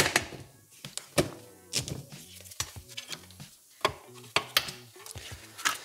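Soft background music with a handful of sharp clicks and knocks from handling: a USB cable plugged into a tablet computer and cables and parts handled on a workbench. The loudest click comes right at the start.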